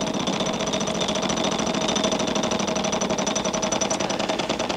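A large game-show prize wheel spinning, its pointer flapper clicking rapidly over the pegs in a fast, even stream of clicks.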